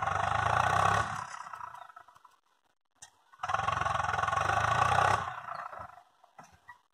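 Tractor diesel engine revved hard twice, each burst about two seconds long with a quick rise and a fading tail, while the trolley's hydraulic tipper is raised to unload its heap of manure.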